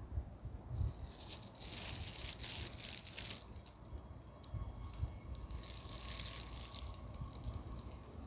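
Outdoor wind noise: a steady low rumble of wind on the phone's microphone, with two spells of rustling hiss and small crackles, the first from about one and a half to three seconds in and the second around six seconds in.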